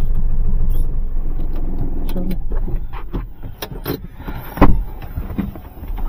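Hyundai Xcent diesel car heard from inside the cabin, a steady low running rumble that fades away after about two and a half seconds as it slows. A few sharp clicks follow, then a single loud thump a little over four and a half seconds in.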